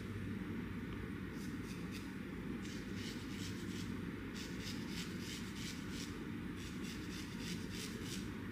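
Straight razor scraping over facial skin around the eyebrows and forehead in short strokes, a few each second, starting about a second in and coming thicker from about halfway, over a steady low hum.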